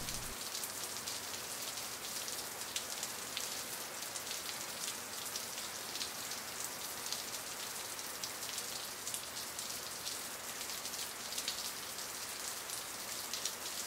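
A steady crackling hiss, like light rain on a surface, with no other sound standing out.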